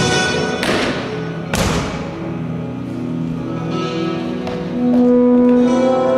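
Performance music: two crashing percussion strikes a little under a second apart, each ringing on, then held notes that swell louder near the end.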